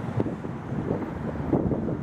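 A tram rumbling along the rails, with a couple of short knocks about a quarter second and a second and a half in, and wind buffeting the microphone.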